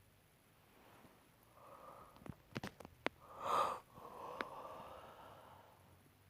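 A person breathing heavily close to the microphone. There is an inhale from about a second and a half in, then a few sharp clicks, then a short, loud breath about three and a half seconds in, followed by a long exhale that fades away.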